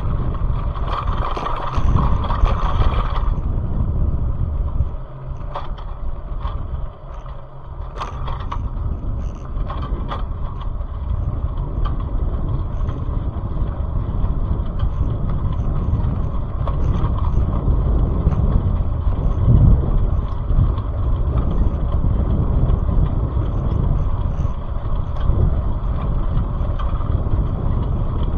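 Steady low rumble of road and wind noise from travelling in a moving vehicle, picked up by an action camera's microphone, with a few sharp knocks in the first third.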